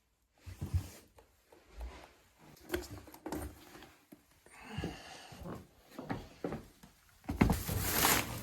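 Scattered knocks and clicks of things being handled and set down, with rustling about halfway through and a louder rustle near the end.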